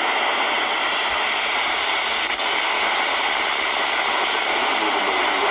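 Steady hiss of open-squelch FM receiver noise from a software-defined radio tuned to 27.94125 MHz narrowband FM, UK FM CB channel 35, with no station coming through.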